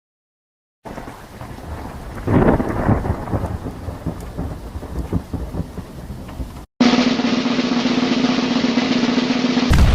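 Sound-effect clips played back to back. After a short silence comes a rumbling, noisy effect with a loud crack about two and a half seconds in. It cuts off abruptly and a different effect with a steady hum under a hiss takes over, broken near the end by a loud low boom.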